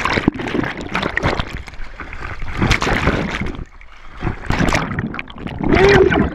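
Water sloshing, splashing and bubbling around a GoPro as a swimmer kicks, the camera moving in and out of the water; irregular splashes with a short lull about four seconds in and louder churning near the end.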